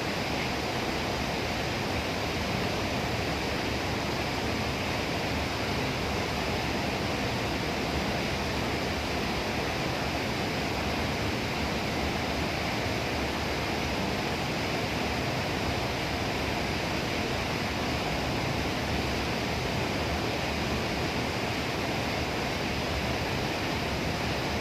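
Hood-type commercial dishwasher running, with a steady rush of water spraying inside the hood.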